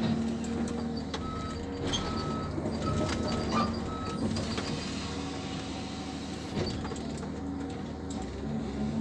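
Forestry harvester's engine and hydraulics working steadily, heard from inside the cab while the harvester head handles a tree. A run of about five short high beeps sounds between about one and four seconds in.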